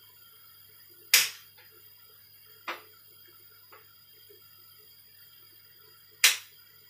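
Kitchen knife slicing mushrooms on a plate: a few sharp clicks of the blade striking the plate. Two loud clicks come about a second in and near the end, with a quieter one and a faint one between them.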